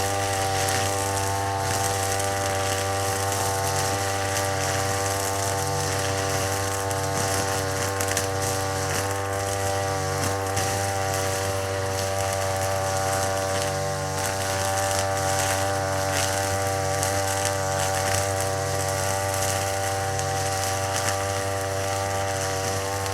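Brush cutter engine running steadily at high speed, holding one even pitch throughout, with its nylon trimmer line spinning.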